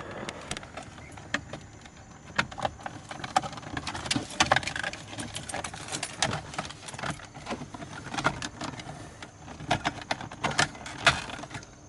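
Irregular clicks, taps and light rattles of small plastic and metal parts being handled and fitted by hand on an aftermarket steering wheel and its hub.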